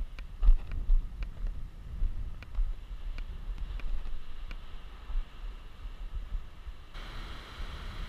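Wind buffeting the microphone in uneven gusts, with a few faint sharp clicks. About seven seconds in, a steady hiss comes in on top.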